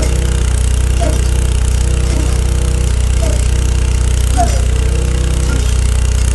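Borehole drilling rig's engine running steadily under load, a loud, even, low drone.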